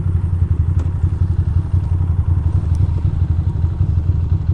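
2006 Ducati Monster 620's air-cooled V-twin idling with a fast, steady pulsing beat.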